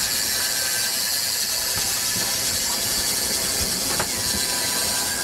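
Spinning reel's drag buzzing steadily as a hooked red drum takes line, a high, unbroken sound.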